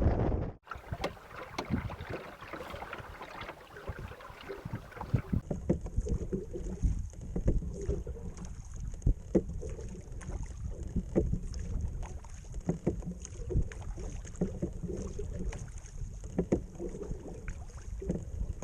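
12-foot wooden skiff being rowed: wind on the microphone with irregular knocks and splashes from the oars and hull. About five seconds in the sound cuts to another shot, where a steady high hiss runs under the same knocks and splashes.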